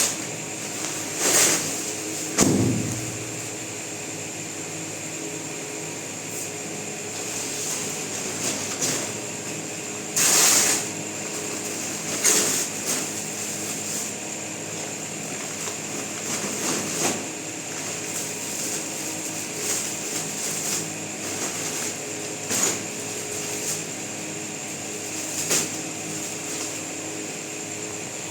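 A steady fan-like hum runs throughout. Over it come about ten brief rustles and handling noises of a curtain's packaging being opened, each lasting about half a second to a second, the longest near the middle.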